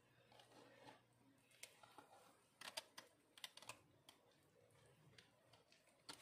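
Faint, scattered clicks and light scraping of a spatula against a glass mixing bowl as thick cake batter is tipped into a paper-lined loaf pan, with a quick run of sharper clicks around the middle.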